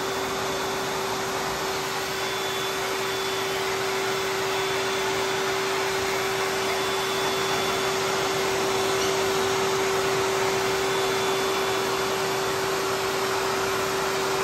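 AIIYME high-velocity dog dryer running steadily, a rush of air through its hose nozzle with a steady motor whine, blowing onto a wet puppy's fur.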